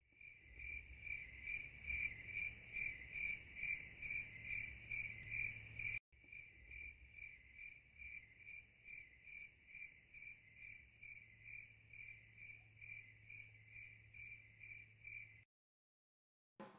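Crickets chirping faintly in an even pulsing rhythm, about two or three chirps a second; the chirping drops quieter after about six seconds and stops shortly before the end.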